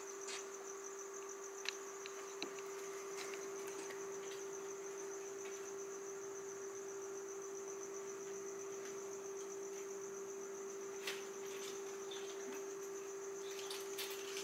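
Crickets chirping in a steady high trill, over a steady low hum, with a few faint clicks.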